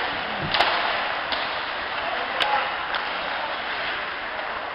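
Ice hockey play heard from the rink side: a steady wash of skates and arena noise, with a few sharp clacks of sticks and puck, the loudest about half a second in and again about two and a half seconds in.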